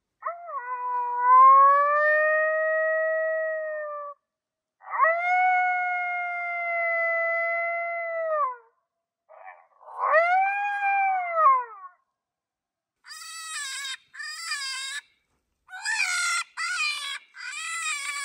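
FoxPro electronic predator caller playing an adult cottontail rabbit distress call, the dying-rabbit sound used to draw in coyotes: three long, wavering wailing screams, then, after a short pause, a run of shorter, higher squealing cries.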